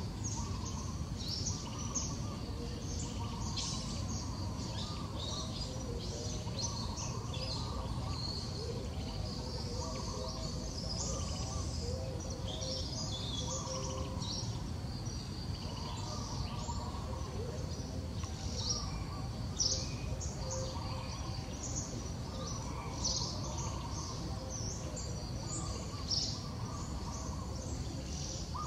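Birds chirping with short high notes throughout, and a lower call that repeats about every two seconds, over a steady low background rumble.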